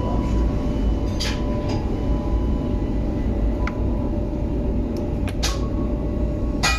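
Steady low rumble with about seven light metallic clinks and taps scattered through it, some ringing briefly, as metal pieces are handled in a workshop.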